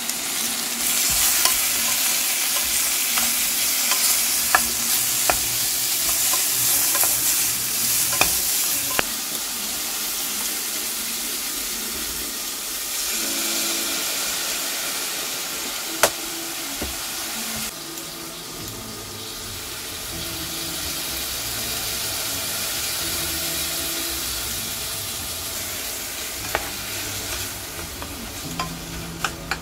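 Sliced sausage and onion sizzling as they fry in a pot, stirred with a wooden spatula that clicks against the pot now and then. The sizzle is loudest in the first several seconds and eases off after about halfway.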